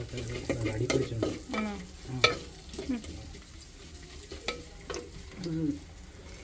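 Steel tumbler and steel plate clinking as water is poured onto spice powders on the plate, with a string of short sharp clicks, over a light sizzle of frying from the clay pot on the wood stove.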